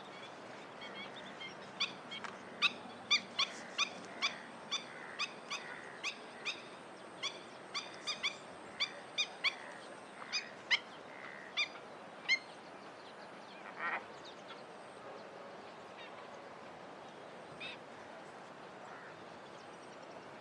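A bird calling in a quick series of short, sharp calls, about two a second, for some ten seconds, then one longer call and a fainter one later, over faint steady background noise.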